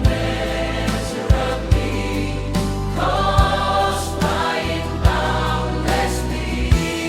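Instrumental interlude of an AI-arranged pop song: sustained choir-like pads over a held bass line, with a drum hit every second or so.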